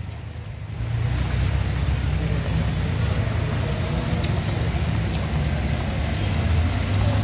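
Slow road traffic of vans and cars on a rain-soaked street: engines running low and steady under a hiss of tyres on wet road and rain. It grows louder about a second in.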